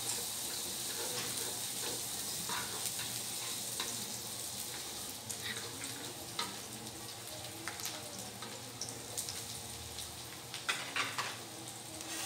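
Sliced shallots and garlic sizzling in hot oil in a nonstick wok, the first sauté of the aromatics. A steady frying hiss, with scattered light taps and scrapes of a wooden spatula stirring them.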